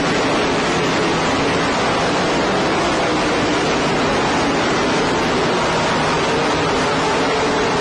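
Race cars running in a field, heard as a loud, steady, hissy wash of engine noise with faint engine pitches inside it, in a poor-quality recording.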